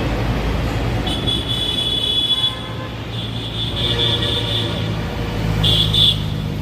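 Street traffic with engines running and vehicle horns sounding three times: a long high honk, a second long one, then a short one near the end.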